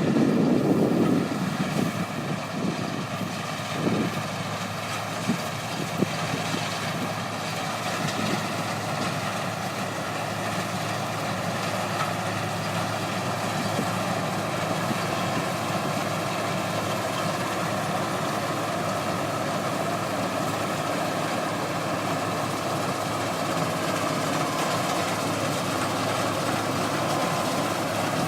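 Combine harvester running steadily: a continuous engine and machinery drone with a steady whine over it. It is louder in the first second, with a couple of short knocks about four and six seconds in.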